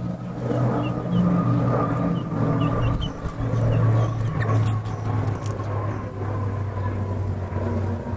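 A motor vehicle's engine running steadily, a low hum, with a few faint high chirps in the first few seconds.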